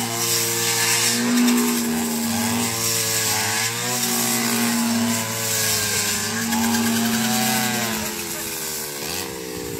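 Petrol brush cutter with a rice-reaping basket attachment running at high revs while cutting rice stalks, its engine pitch dipping and rising again every second or two as it takes each swing.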